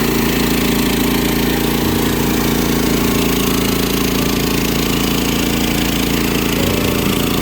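Portable band sawmill running, its engine at a steady speed.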